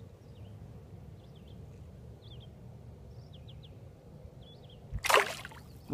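Outdoor ambience with a low steady rumble and faint small birds chirping now and then. About five seconds in there is a sudden loud rush of noise, about half a second long.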